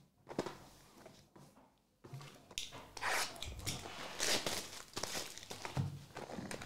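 Foil trading-card packs and their cardboard box rustling and crinkling as the packs are handled and pulled out. The rustling starts about two seconds in, after a faint tap, and comes in uneven bursts.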